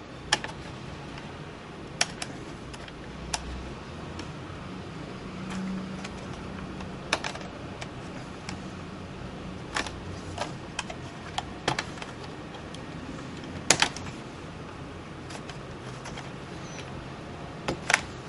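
Scattered small clicks and taps as a tool and fingers work a laptop's ribbon-cable connectors and a small circuit board loose, over a low steady hum. The sharpest click comes about two-thirds of the way in.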